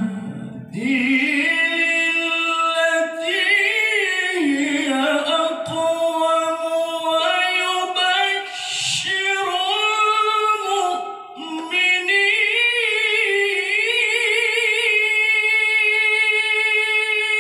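A solo voice chanting in the melodic Qur'an recitation style (tilawah), holding long notes with wavering ornaments and runs. The phrases are broken by short pauses for breath, near the start and twice more.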